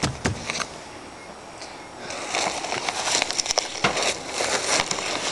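Clear plastic bag crinkling and rustling as it is handled, a dense run of fine crackles starting about two seconds in, after a couple of short knocks.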